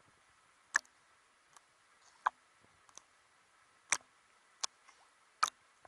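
Small ripples slapping against a camera held at the water's surface, heard as about five sharp, irregular clicks over a faint steady hiss.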